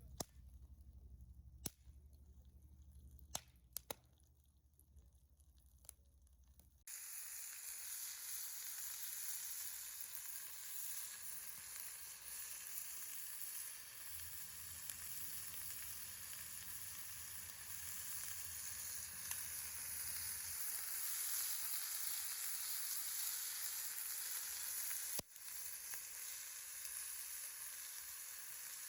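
Food sizzling as it fries in a pan, a steady hiss that starts suddenly about seven seconds in. Before it come a few sharp clicks and knocks.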